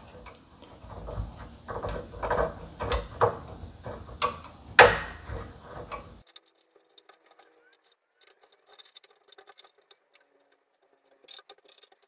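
Irregular metal clicks and knocks as a nut is taken off an exercise bike's crank arm and a pedal is threaded on by hand, with a sharper knock about five seconds in. After about six seconds only faint, scattered ticks remain.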